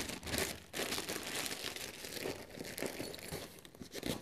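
Plastic packaging crinkling and rustling as it is handled, in irregular bursts, with a light knock near the end.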